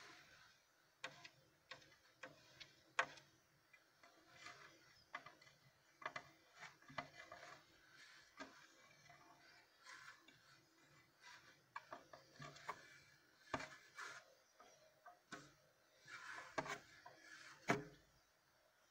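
Quiet handling noise from hands working in a plastic terrarium: scattered small clicks, taps and rubbing, with a few sharper knocks standing out.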